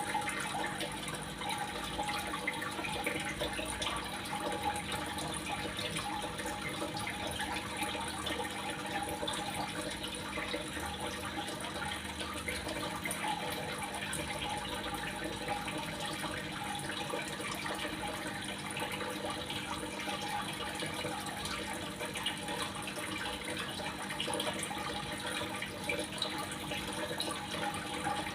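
Steady running water, an even splashing and trickling that does not change.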